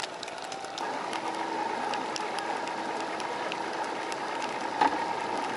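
Bass boat's outboard motor running as the boat pulls away, a steady whine setting in about a second in, with rain ticking throughout and one sharp knock near the end.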